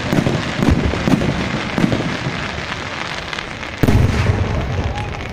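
Fireworks going off: a rapid string of bangs and crackles, with a louder, deeper boom about four seconds in.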